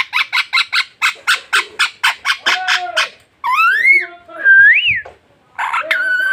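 A pet parrot chattering in a fast run of short, even calls, about seven a second for three seconds. It then gives two whistles that rise and fall, and another call near the end.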